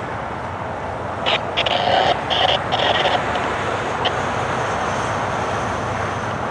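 Steady rumble of road traffic, with cars and a box truck driving past.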